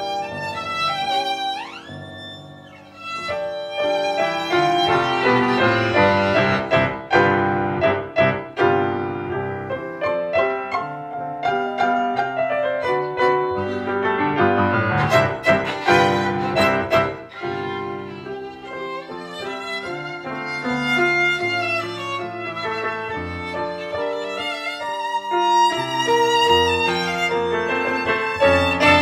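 Violin and grand piano playing a classical violin sonata together, the bowed violin line over piano accompaniment. The playing thins out briefly about two to three seconds in, then grows fuller again.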